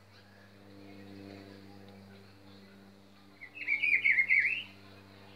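Rufous-bellied thrush (sabiá-laranjeira) singing one short phrase of quick warbling notes about three and a half seconds in, over a steady low hum.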